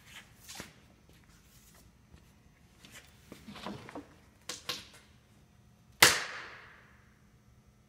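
A wooden test strip with an epoxied scarf joint, clamped in a vise and bent by hand: a few small creaks and cracks as it strains, then one loud sharp crack about six seconds in as the wood snaps, dying away over about a second. It breaks in the wood itself rather than at the scarf joint, showing the epoxied joint is stronger than the wood.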